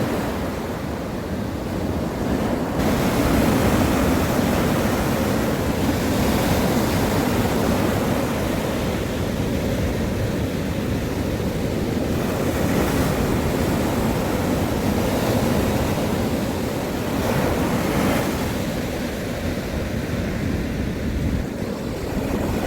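Sea waves surging and washing in, a steady rushing noise that swells and eases every few seconds.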